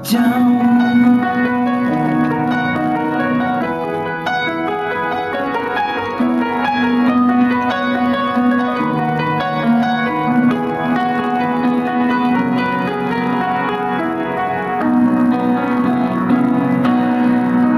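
Chappell grand piano played solo: a continuous passage of chords over a held low note, with a moving melody line on top.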